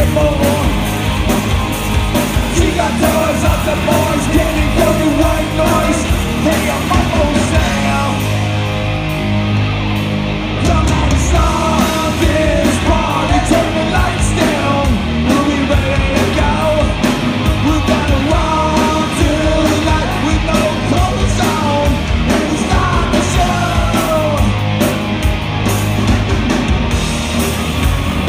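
Loud live rock band playing, with a singer's vocal over the band and drums hitting throughout. The music dips briefly and comes back louder about ten seconds in.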